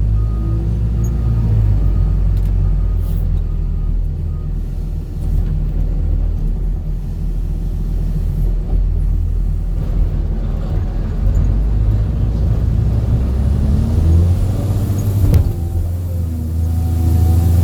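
Steady low rumble of a motor vehicle's engine and road noise. A sharp click comes about fifteen seconds in, and the engine note becomes clearer near the end.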